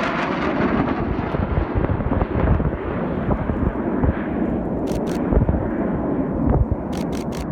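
Panavia Tornado's twin RB199 turbofans heard just after a flypast: a loud, crackling low rumble that fades as the high hiss dies away. A few camera shutter clicks come through about five seconds in and again near the end.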